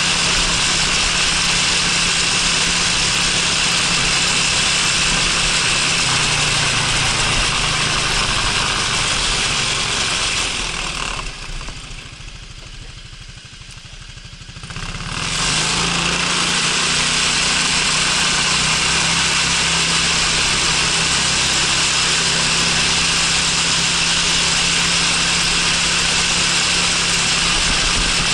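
Honda Freeway 250 cc scooter being ridden, its single-cylinder engine running under steady wind and road noise on the microphone. About a third of the way in the noise dies away as it stops and idles for a few seconds, then rises again as it pulls away.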